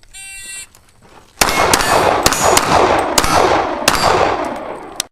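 Shot-timer start beep, then a rapid string of about six pistol shots, each with metallic ringing as steel targets are hit.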